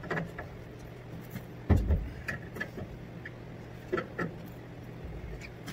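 Channellock pliers clicking and knocking against the metal fittings of an industrial washer's water valve as a fitting is turned, in a handful of separate knocks, the loudest and dullest one about two seconds in. A steady low hum runs underneath.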